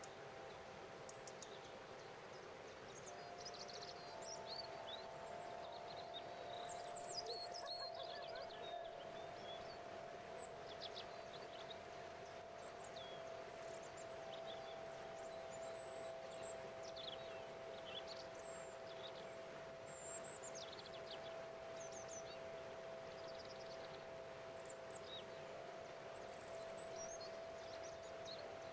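A crystal harp of quartz crystal singing bowls rings with several long held notes overlapping. Many short bird chirps sound above it, over a steady rush of water from a small cascade.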